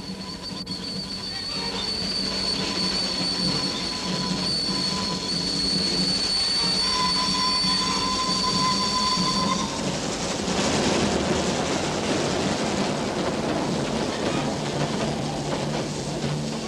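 Din of dam construction machinery on an old black-and-white film soundtrack: a long, steady high-pitched squeal over a low hum, giving way about ten seconds in to a rougher rushing noise.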